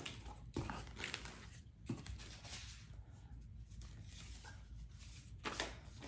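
A cardboard shipping box being opened and its papers handled: scattered rustles and soft knocks of cardboard flaps and paper, with a louder pair of rustles near the end.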